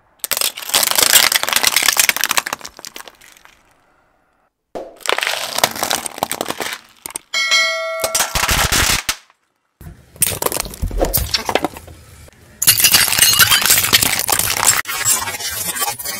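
Plastic cups and filled objects cracking and crunching as a car tyre rolls over and crushes them, in several separate bursts cut together. A short bell-like chime sounds about halfway through.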